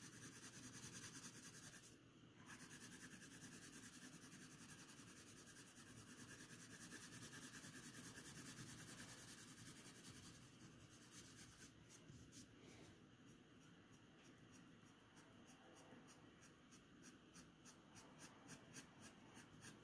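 Graphite pencil shading on drawing paper, faint: a continuous scratchy rubbing for about the first half, then short, quick feathering strokes, a few a second, each pulled in one direction and lifted off at the end.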